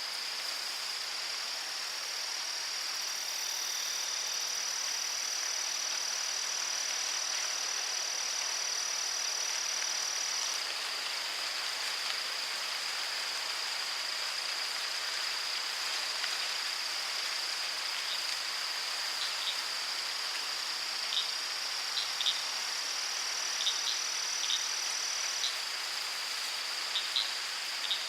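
Forest and river ambience: a steady high-pitched insect trill runs over the even rush of flowing river water. In the second half, short high chirps come in scattered, every second or so.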